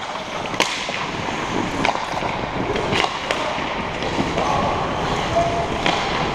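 Ice hockey skates scraping and carving on the ice, with several sharp clacks of sticks and puck.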